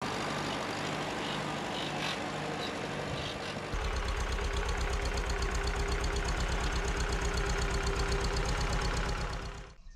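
Farmall tractor engine running. About four seconds in, the sound cuts to a louder run with an even low throb of firing pulses, and it stops suddenly near the end.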